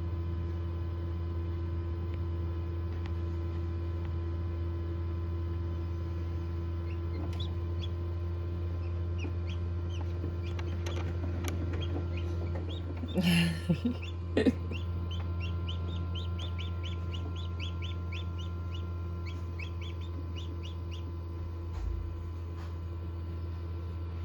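Newly hatched chick peeping: a run of short, quick, rising chirps, several a second, starting about a quarter of the way in and stopping near the end, over a steady low hum. One louder brief sound comes a little past the middle.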